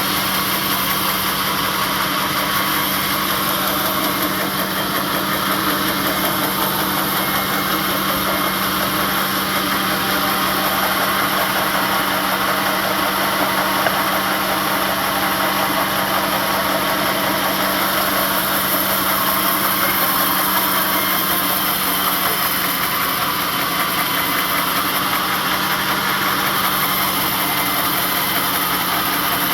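Sawmill engine running steadily: a constant drone with a steady low hum, the pitch unchanged throughout.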